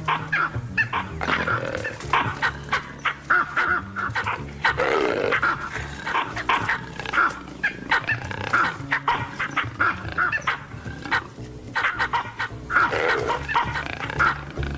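A troop of baboons barking and screaming in rapid, overlapping calls, their intimidation display against a leopard, over low background music.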